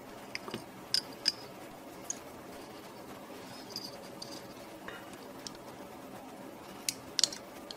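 A few light, sharp clicks and taps from a printed circuit board being handled and set down on a workbench mat, the two loudest close together near the end, over a low steady hum.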